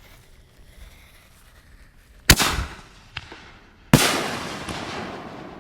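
Consumer 5-inch canister firework shell fired from a mortar tube: a sharp bang as it launches, then about a second and a half later a louder bang as the shell breaks, with a long echoing tail that fades out.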